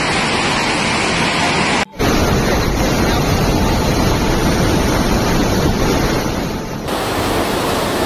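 Steady, loud rushing of a muddy flash-flood torrent. It breaks off for a split second about two seconds in and changes in tone near the end, where one piece of footage gives way to another.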